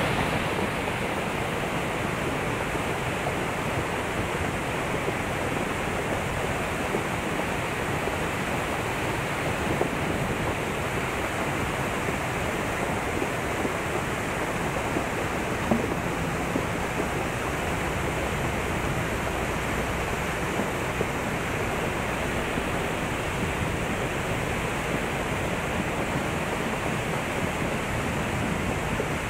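Mountain torrent in flood: a wide river of muddy floodwater rushing and churning over a concrete step, making a steady, loud rushing noise with no let-up.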